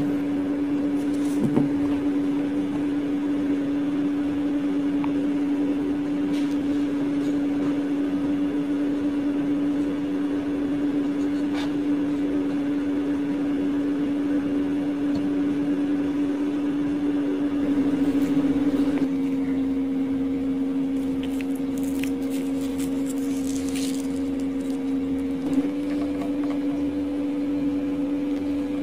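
A steady machine hum at one fixed pitch, changing slightly about two-thirds of the way through, with a few faint clicks.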